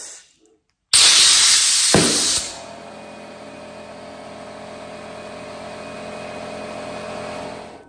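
Compressed air from a blow gun hissing loudly into a glove for about a second and a half, with a sharp snap about two seconds in. The hiss then gives way to the steady, quieter hum of the air compressor running, which stops near the end.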